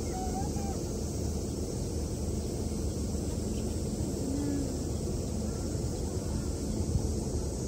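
Steady background noise with a low hum, and a brief faint voice about half a second in.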